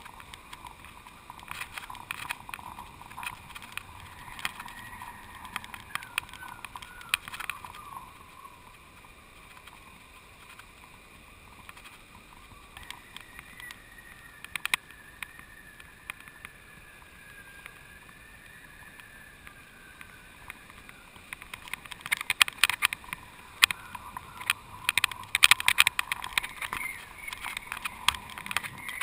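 Kite-mounted GoPro rig jostling in the wind: irregular ticking and clattering that comes in clusters and is heaviest near the end, over a faint wavering whistle.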